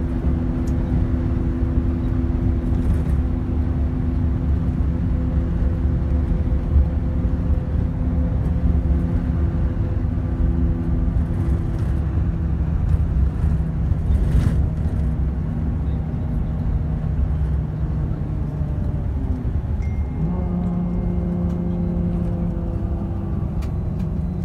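Engine and road noise heard from inside a moving vehicle, a steady low rumble with a humming engine note that changes pitch about twenty seconds in.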